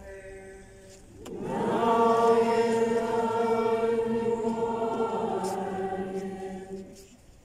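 Many worshippers' voices singing a liturgical response together in chant: one long held chord that comes in about a second in and fades out near the end.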